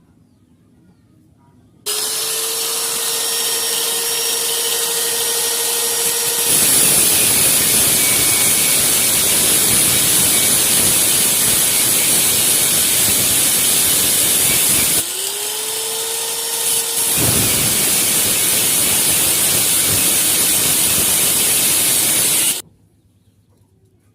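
A small electric power tool run twice. Each time its motor whine rises quickly to a steady pitch and then gives way to a loud, rough working noise lasting several seconds, before cutting off suddenly.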